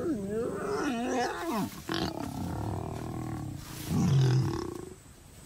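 African lions snarling and growling while mating, a wavering snarl followed by a loud, low growl about four seconds in as the lioness snarls at the male.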